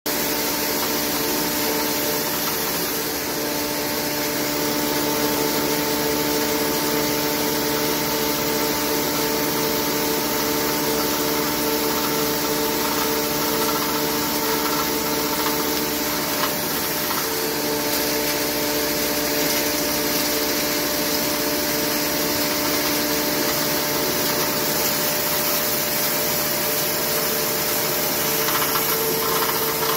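Model 198 5.3 hp single-phase electric hammer mill running steadily while grinding wood BBQ chips through a 6 mm screen: a steady hum of several tones under a loud, even rush of air and ground material.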